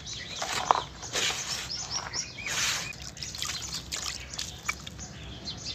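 Very soft puréed cement being smashed and crumbled, a dense run of small crackles and short wet crunches at an uneven pace.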